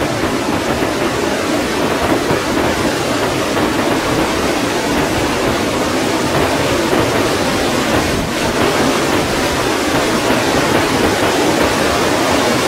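Flash-flood debris flow: a surge of muddy water packed with logs and branches moving down a dry wash, giving a loud, steady, deep rushing rumble.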